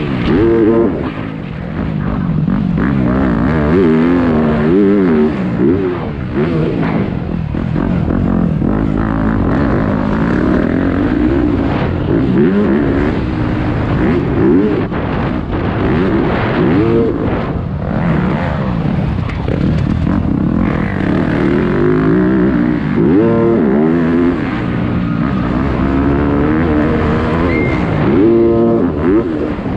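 Motocross dirt bike engine racing on the track, revving hard with its pitch climbing and dropping again and again as the rider works the throttle and shifts through the gears.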